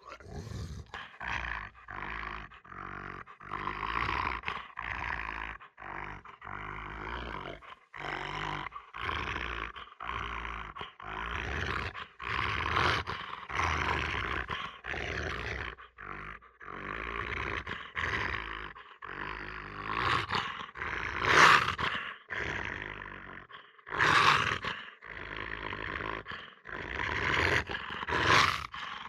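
A dog growling and snarling in a rapid run of short, rough bouts with brief pauses between them, the loudest snarls coming in the last third.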